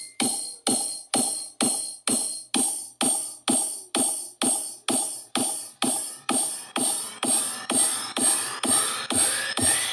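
Electronic dance music with a steady drum-machine beat, about two beats a second; a heavier bass line comes in near the end.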